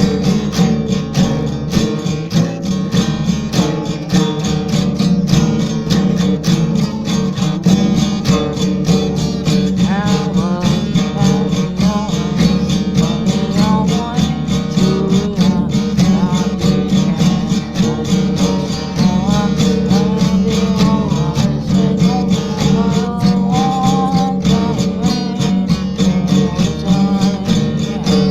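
Country-style music with strummed acoustic guitar at a steady, quick beat, and a melody line over it in the second half.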